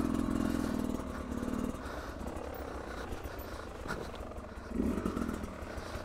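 Beta RR 300 single-cylinder two-stroke enduro engine running at low revs on a descent, picking up briefly for the first second or so and again about five seconds in.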